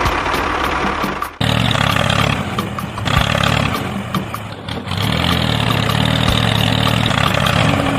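Engine of a small vehicle running steadily. The sound changes abruptly and gets louder about a second and a half in, dips briefly near the middle, then settles back to an even running note.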